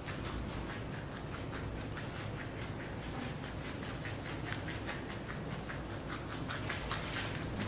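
Gloved hands rubbing and pressing quickly over bare skin and leggings, making a fast, irregular run of short rustling strokes.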